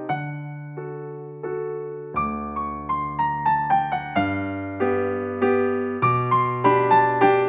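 Soft solo piano background music: slow notes over sustained bass notes that change every two seconds or so, with a quicker run of melody notes in the middle.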